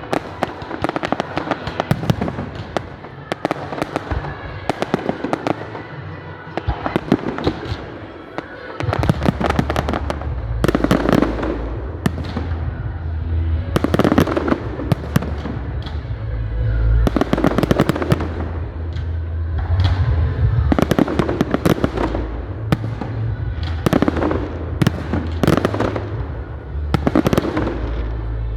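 Fireworks display: a rapid string of sharp bangs and crackling bursts from aerial shells. About a third of the way in it thickens into a heavy, continuous low rumble under the bangs.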